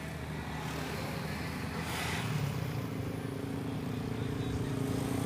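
A motor vehicle's engine running steadily and slowly getting louder, with a brief rush of traffic noise about two seconds in.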